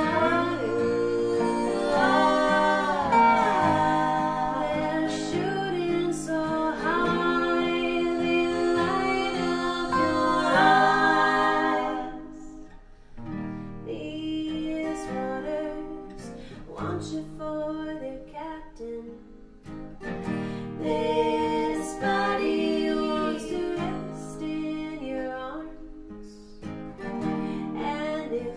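Women's voices singing in close harmony over acoustic guitar and dobro for about the first twelve seconds, then a quieter instrumental passage of plucked acoustic guitar and dobro notes.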